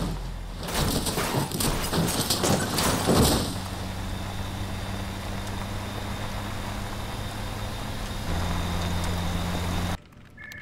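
A car crashing and rolling over: about three seconds of heavy, irregular crunching impacts. Then a car engine runs steadily at speed, its note growing louder a little past eight seconds, before the sound cuts off abruptly.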